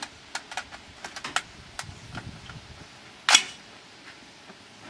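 Armalite AR-10T rifle being loaded and made ready: a string of small metallic clicks and rattles, then one louder clack about three seconds in.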